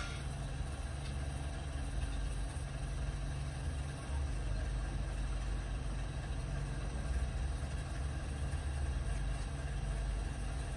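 Steady low mechanical rumble with a constant low hum, like a running engine.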